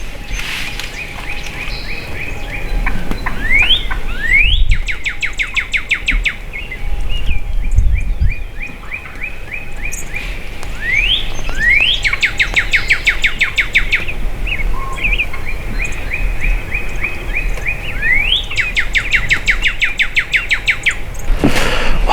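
A songbird singing the same phrase three times, each a stuttering trill, a quick rising whistle and a fast buzzy run of notes.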